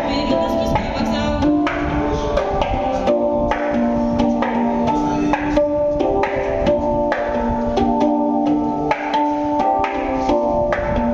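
Handpan (hang) played with the hands: a continuous run of struck, ringing metal notes, with light tapped percussive hits between them.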